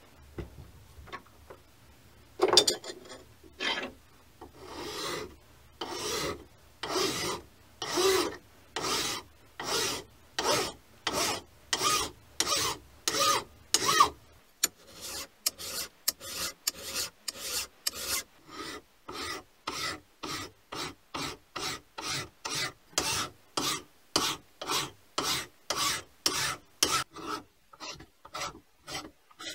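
Hand file stroking along the edge of a mini lathe's cast-iron tailstock casting, rounding off its sharp edges. Regular rasping strokes about one a second, quickening to about two a second halfway through.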